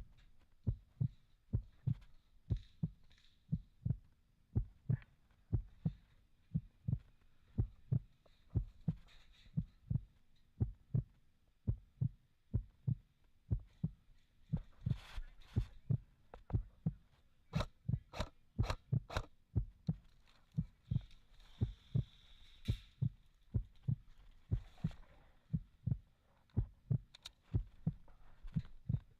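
Steady rhythm of low thumps, a little under two a second, with a few sharper clicks mixed in around the middle.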